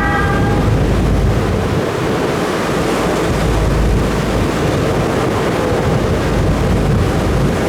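Steady low rumble of a ferry under way, with wind buffeting the microphone and water rushing past the hull.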